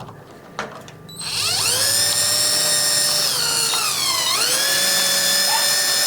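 Cordless drill-driver spinning up and running with a steady high whine while driving a long deadbolt screw. Its pitch sags for a moment about three seconds in as it takes load, then recovers. Two light clicks come just before it starts.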